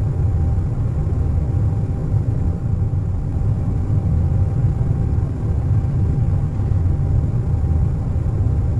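Airliner cabin noise at cruise: a steady, deep rumble with a faint constant whine above it.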